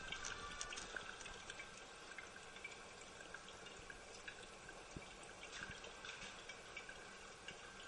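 INAX AWU-507RAML urinal's flush water trickling and dripping down the ceramic bowl into the drain: a faint steady trickle with scattered small drips.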